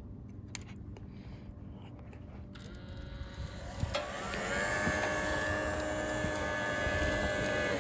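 Espar Hydronic diesel coolant heater's blower motor spinning up with a rising whine about three and a half seconds in, then running at a steady high whine with a hiss. The owner hears what sounds like chunks of debris lodged inside it.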